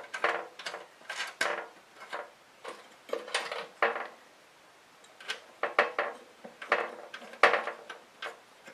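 Metal parts of a kerosene heater clinking and scraping as they are handled during reassembly, with the wing nuts being fitted back on: irregular light clicks and rattles, with a brief pause about halfway through.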